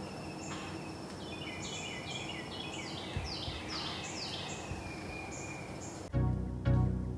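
Evening woodland chorus: a steady high-pitched insect drone, with overlapping short calls that step down in pitch and grow busier around three to four seconds in. Background music with a low bass line starts about six seconds in.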